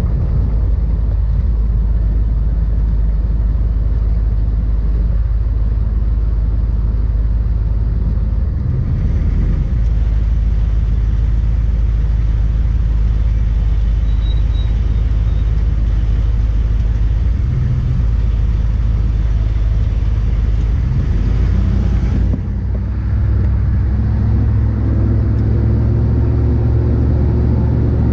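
Steady low rumble of a running motor vehicle, shifting in tone about nine and twenty-two seconds in.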